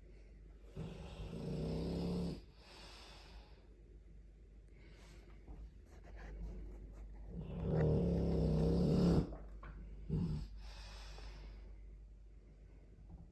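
Dogue de Bordeaux snoring while asleep: two long, loud snores about six seconds apart, each lasting over a second and followed by a softer breath out.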